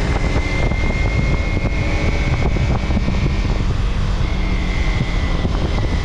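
Vehicle travelling along a highway: a steady run of engine, road and wind noise with a deep rumble and a faint steady high whine.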